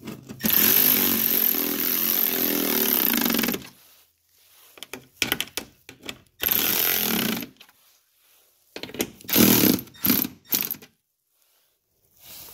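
Milwaukee cordless electric ratchet running in bursts as it tightens bolts: one steady run of about three seconds, a shorter run about six seconds in, and a few short bursts near ten seconds.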